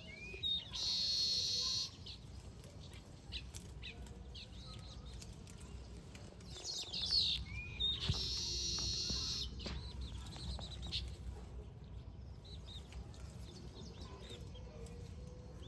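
Weaverbirds calling: scattered chirps and sweeping notes, with two harsh buzzy calls about a second long, one near the start and one about halfway through, over a low steady rumble.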